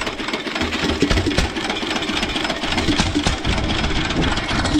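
Single-cylinder stationary engine with a compression release running steadily in a regular low chugging beat; its piston oiler is not yet turned on.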